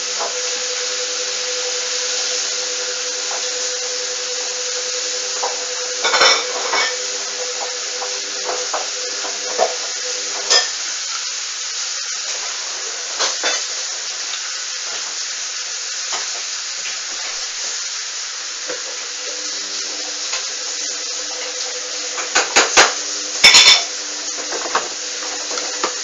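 Hoover A59 front-loading washing machine tumbling its wash load: a steady motor hum over water swishing in the drum, the hum dropping out for a few seconds midway and then returning as the drum pauses and turns again. Scattered clinks and knocks of the load against the drum, a loud cluster near the end.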